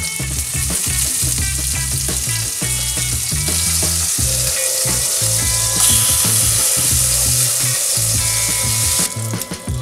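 Ramly burger patties sizzling in oil and garlic water in a hot frying pan while a spatula turns them. The sizzle grows louder about six seconds in and drops near the end. Background music plays underneath.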